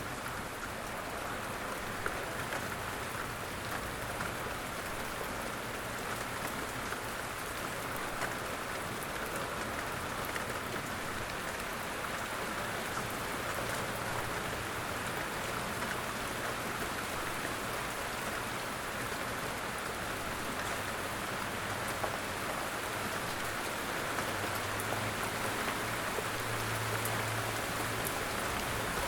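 Steady light rain falling, a dense, even patter of countless drops.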